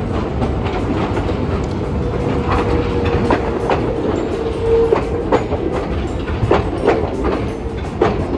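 Hiroden streetcar rumbling past close by on a curve through a track junction. From about two seconds in, its wheels clack over rail joints and crossings in a run of irregular clicks, with a thin steady whine that is strongest around the middle.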